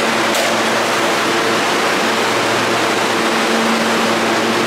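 Steady rushing roar of an underground subway station, with a low hum underneath and no change in level.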